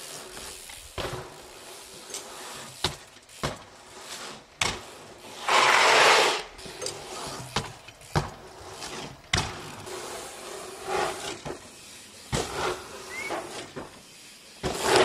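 A series of sharp knocks and clicks scattered through, with a loud rushing noise lasting about a second near the middle.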